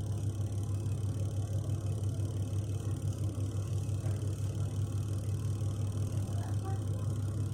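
Twin-tub washing machine's spin-dryer motor running at a steady speed with a deep, even hum, the drum spinning properly again now that the motor's capacitor has been replaced.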